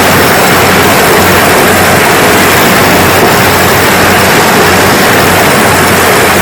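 Kubota DC-70G rice combine harvester running steadily: a loud, even engine drone under a constant rushing noise.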